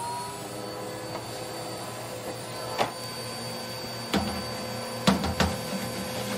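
Shop vacuum running with a steady whine, just settling to full speed at the start. A few sharp knocks and rattles, the loudest near the end, as the hard nozzle works inside the steel wood stove cleaning it out.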